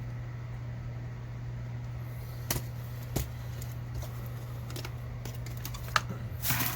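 Scattered clicks and knocks from tools and packaging being handled and set down, three sharp ones and a short rustle near the end, over a steady low hum.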